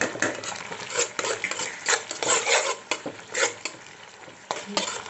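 Steel spoon scraping and stirring diced onion and capsicum around a dark pan in irregular strokes, over a soft sizzle of vegetables frying in sauce.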